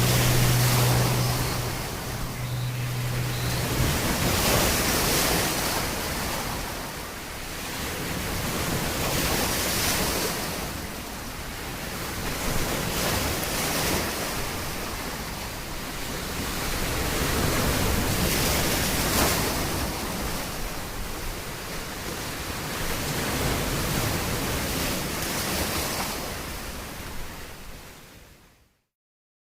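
Ocean surf: waves washing in and drawing back in slow swells every four or five seconds. A low steady hum sounds under it for the first four seconds, and the sound fades out near the end.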